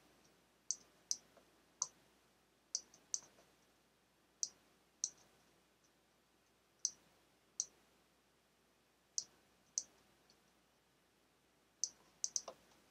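Faint computer mouse button clicks while drawing on screen: a dozen or so single clicks, often in pairs about half a second apart, with a quick run of three near the end.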